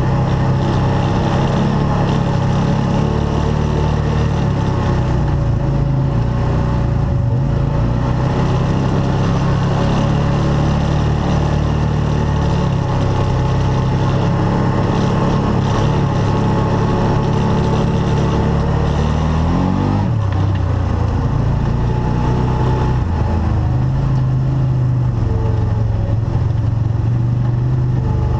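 Arctic Cat Wildcat side-by-side engine running steadily under way, revving up about twenty seconds in and then dropping back.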